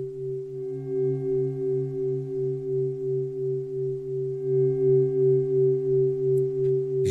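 Sustained drone of a few steady low tones, pulsing evenly about three times a second, like the beating hum of a singing bowl.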